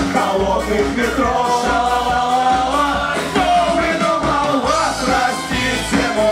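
Live band playing loud rock-style dance music, with electric guitars, bass and drums keeping a steady beat under a lead melody line.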